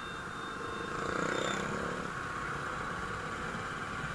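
Two-wheeler engine running at riding speed with steady road and traffic noise, heard from the rider's seat. About a second in a louder pitched sound, most likely a passing vehicle, swells briefly and fades.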